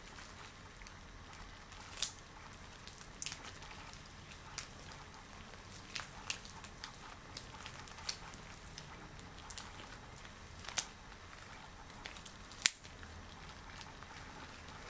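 Latex gloves being handled: faint rubbing with a few sharp, irregular clicks of the rubber, the loudest one near the end.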